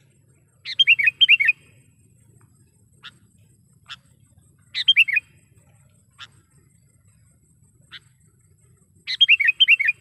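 Sooty-headed bulbul calling: three quick phrases of several clear falling notes, about four seconds apart, with single short notes between them.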